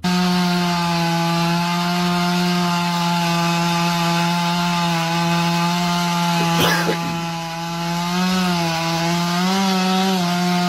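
Chainsaw running at high, steady revs while cutting into a tree, its engine note wavering slightly near the end. A single short sharp snap cuts through about two-thirds of the way in.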